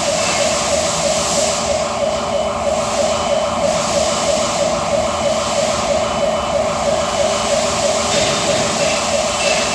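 Rapidly pulsing warning tone, like an industrial alarm or buzzer, over steady machine noise.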